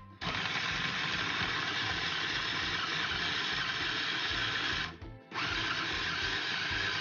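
Electric food chopper's motor running as it grinds cooked chicken cubes. It stops for a moment about five seconds in, then starts again.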